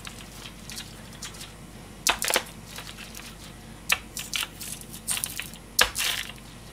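Large kitchen knife cutting into a whole raw cabbage head, giving crisp crunches and cracks in short irregular groups. The loudest come about two seconds in and again near the end.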